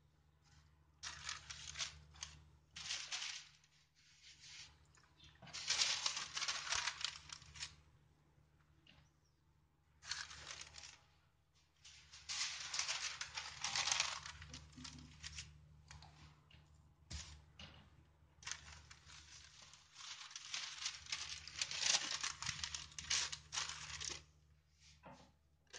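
Sheets of butter paper (parchment) rustling and crinkling as they are handled, laid flat and smoothed by hand, in several bursts of a few seconds each with short quiet gaps; the longest run comes in the last third.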